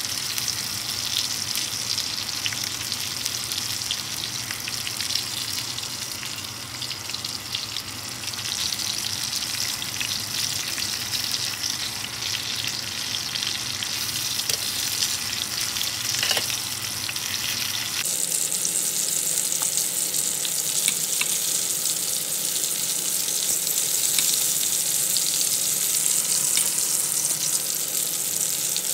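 Breaded chicken tenderloins sizzling steadily as they shallow-fry in hot oil in a pan, with a few light clicks of a fork against the pan as the pieces are turned. About two-thirds of the way through, the sizzle becomes a brighter, louder hiss.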